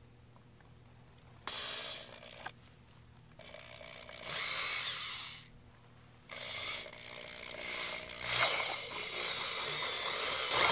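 Power drill with a 3/8-inch bit enlarging pilot holes in a plastic car bumper. It runs in bursts: a short one about a second and a half in, a longer one around four to five seconds, then a longer run from about six seconds on.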